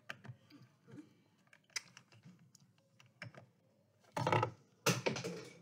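Handling noise from a rubber-gloved hand at a foam tray: scattered light clicks and taps, then two loud rustling scrapes about four and five seconds in.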